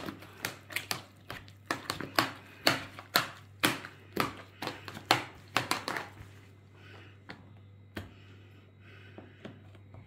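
Mashed potatoes being beaten by hand in a metal pot, with butter and milk worked in to lighten and thin them. The wooden-handled utensil knocks against the pot about twice a second, then the strokes stop about six seconds in.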